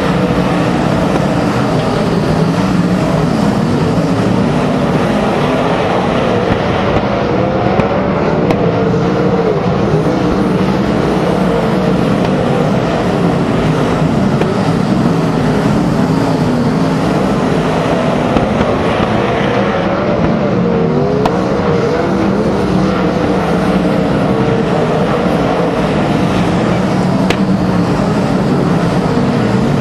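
A pack of winged sprint cars' V8 engines running together on track: a steady, loud drone with several engine pitches rising and falling over one another as the cars speed up and back off.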